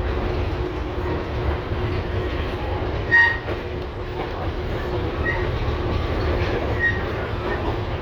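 LVS-2009 tram running, heard from aboard: a steady low rumble of wheels on rail with a constant hum. About three seconds in, a brief, loud, high-pitched ringing sound stands out above the running noise.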